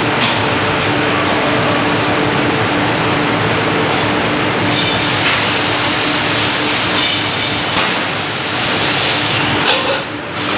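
Cold-chamber die casting machine running through its cycle: a steady hydraulic hum with occasional metallic clanks. From about four seconds in a loud hiss of spray and steam at the die joins it and lasts several seconds.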